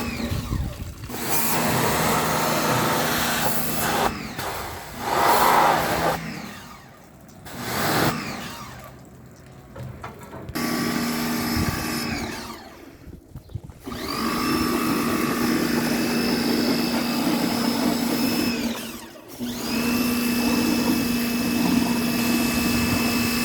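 Small electric pressure-washer (jet pump) motor running with a hiss of spray, switched off and on several times; each time it stops the hum winds down in pitch, and it picks up again within a second or two.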